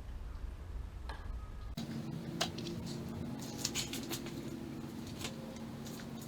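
Scattered light clicks and taps from hand work on motorcycle carburettor parts. About two seconds in, the background switches abruptly to a steady low hum.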